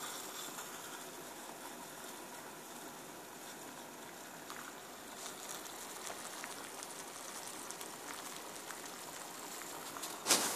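Homemade beer-can methanol blowtorch burning with a steady hiss, and a short loud burst of noise near the end.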